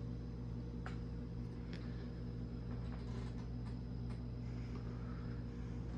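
Steady low electrical hum of room tone, with a few faint light clicks scattered through it.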